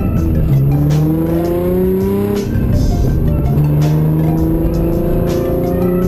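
Nissan 350Z's V6 engine under load at high revs, its pitch climbing slowly. The revs drop about half a second in, the sound turns rough for about a second from two and a half seconds in, and the engine then pulls again.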